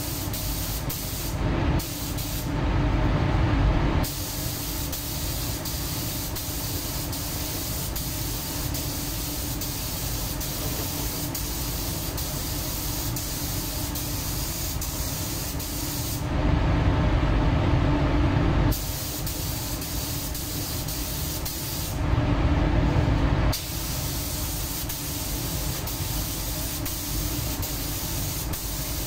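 Compressed-air paint spray gun hissing steadily as it lays on clear coat, set to about two bar. Three louder, deeper rushes of air break in: about a second in, a little past halfway, and again shortly after.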